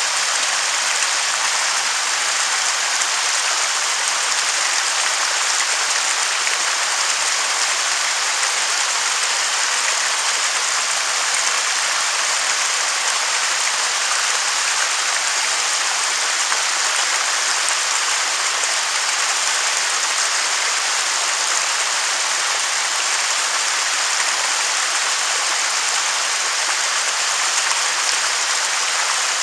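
Waterfall: water falling in a steady, unbroken rush, a bright even hiss with little deep rumble.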